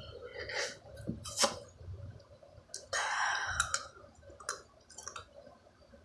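Teeth biting and scraping at a ball of ice: a few sharp clicks, and a longer rasping noise about three seconds in.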